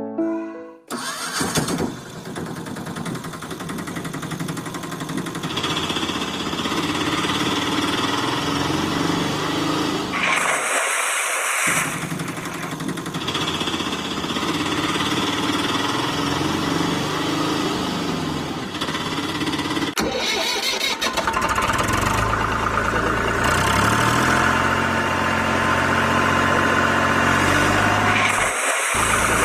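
Engine sound effect laid over toy vehicles: a motor engine starting and running, its pitch stepping up and down in the later half, cut off briefly about eleven seconds in and again near the end.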